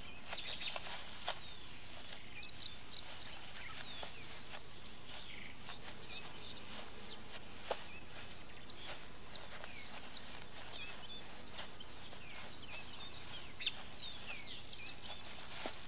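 Field ambience of a steady, high, trilling insect chorus, with many short falling bird chirps over it and a few sharp clicks.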